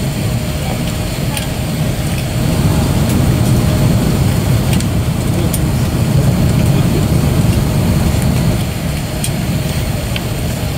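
Steady low rumble inside a parked Airbus A330-200 airliner cabin, the air-conditioning and ventilation running while the aircraft waits at the gate.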